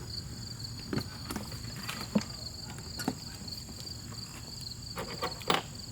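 Scattered clicks and knocks of parts and tools being handled as the fuel tank is refitted on a pressure washer's engine. Crickets chirp steadily in the background.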